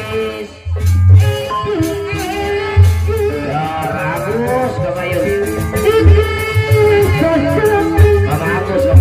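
Live Sundanese jaipongan music: a woman singing a gliding melody over deep kendang drum strokes and pitched gamelan tones. The music drops out for a moment just after the start, then comes back in on a heavy drum stroke.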